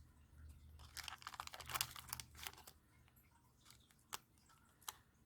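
Small plastic jewelry pouch crinkling faintly as it is handled and opened by hand, in scattered irregular crackles, with two sharp light clicks near the end.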